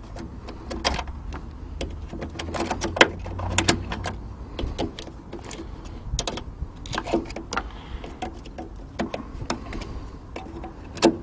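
Irregular metallic clicks and taps as the drilled-out hinge screws and fixing clips of a Land Rover Defender door are poked through and pulled out by hand.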